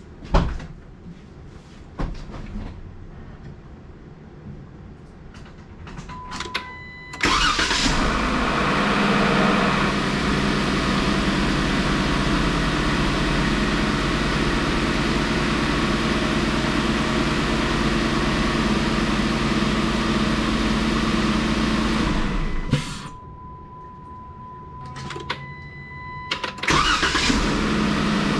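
Jeep Wrangler JKU's 3.6 V6 engine cranking and starting, running for about fifteen seconds and shutting off, then starting a second time near the end, with a chime tone before each start. On the first start the engine is briefly noisier while oil pressure comes up after the oil change and fills the top end, then it settles into an even idle.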